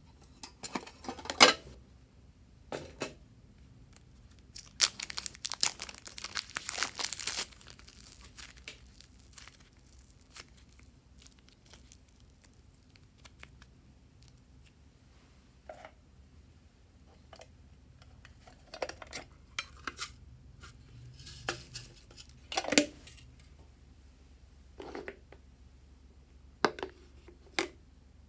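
Hands handling slime containers and toppings: scattered taps, knocks and clicks of plastic and tin tubs, with a longer crinkly tearing noise about five to seven seconds in.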